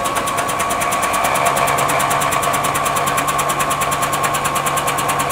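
Electric starter cranking the Murray riding mower's 18 hp Briggs & Stratton twin-cylinder engine with its spark plugs out, spinning fast and evenly with a rapid regular ticking and a steady whine, stopping at the end. The engine is being turned over to blow water out of its hydrolocked cylinders.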